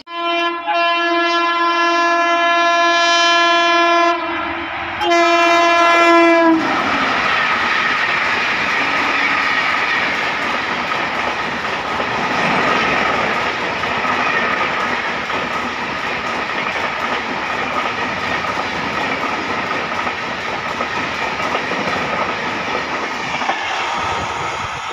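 Express train passing at speed behind an electric locomotive: the horn blows one long blast of about four seconds, then a shorter second blast, followed by the loud rush and clickety-clack of the coaches running past close by, easing off near the end.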